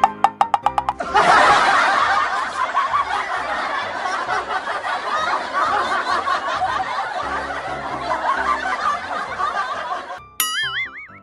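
Laugh-track sound effect of many people laughing together, laid over light background music, starting about a second in after a few quick knocked, wood-block-like music notes. It stops near the end, where a wobbly cartoon boing effect begins.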